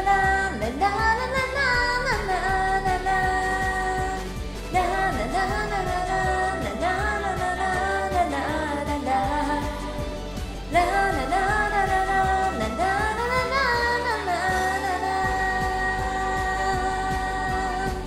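A woman singing a J-pop idol song over a karaoke backing track, with long held notes.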